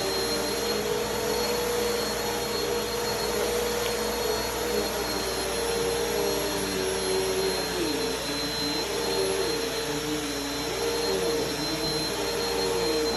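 Bissell vacuum cleaner running on carpet: a steady motor whine over a dense rush of air, with a lower hum that wavers up and down in pitch during the second half.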